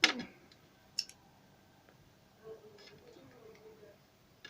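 Sharp mechanical clicks: a loud one at the start and another about a second in, followed by a few faint ticks and a faint low hum.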